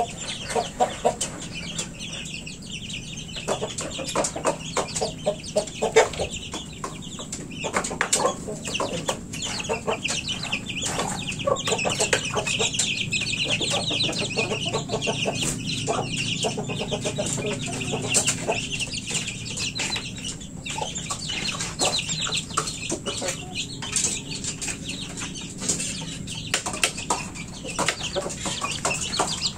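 Chickens clucking and chicks peeping continuously in a flock, with many short sharp taps scattered throughout.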